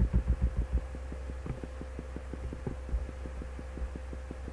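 Steady low electrical hum from the recording chain, with a fast, even train of faint ticks, about nine a second, running through it. No speech.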